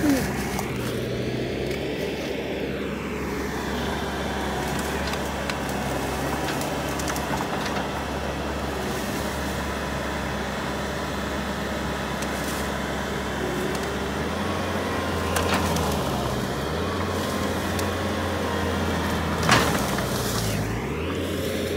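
Diesel engine of a Bobcat compact track loader running steadily, its tone stepping up about fourteen seconds in. Two sharp knocks are heard in the second half.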